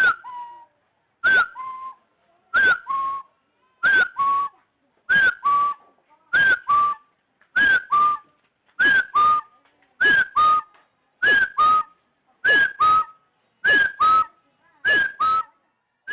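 Red junglefowl lure call, repeated evenly about every 1.25 seconds, thirteen times. Each call is a sharp whistled note that drops in pitch, followed straight away by a shorter, steadier lower note.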